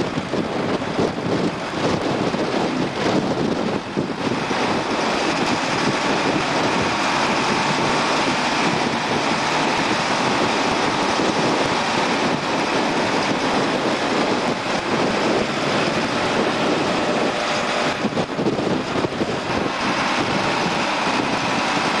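Tractor-drawn Grimme potato harvester working in the field: a steady, dense mechanical noise from the machine and its conveyors as potatoes are elevated into a trailer alongside.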